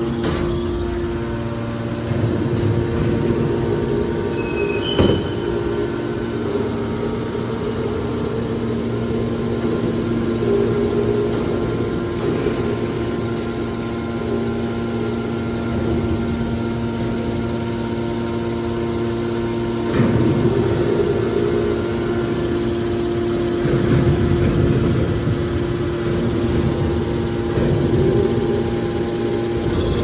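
Hydraulic scrap metal baler's electric motors and hydraulic pumps running: a steady hum with two held tones, swelling louder several times. A sharp knock about five seconds in.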